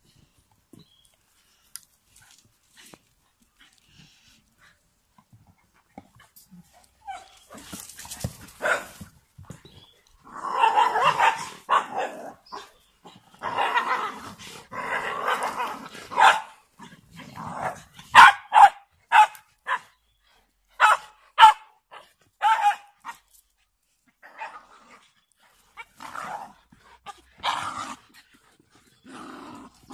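Dogs at rough play: growling and snarling in long stretches, then a string of short, sharp barks about eighteen seconds in, with a few more near the end.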